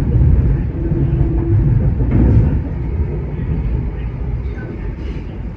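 Steady rumble of a Kinki Sharyo–Kawasaki electric multiple-unit train running on the track, heard from inside the carriage, with a brief faint hum about a second in.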